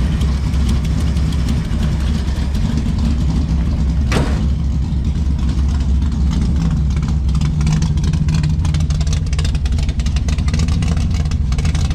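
A vehicle engine idling steadily just after a cold start, with good oil pressure. A single sharp click comes about four seconds in.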